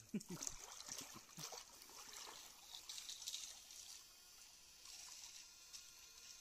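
Faint water trickling and splashing in a shallow stream, with a few short low sounds in the first second and a half.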